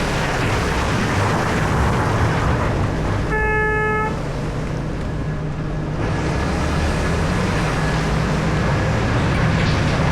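Heavy mining machinery running steadily, the Komatsu PC4000 hydraulic excavator working at a haul truck, with one short horn blast a little over three seconds in.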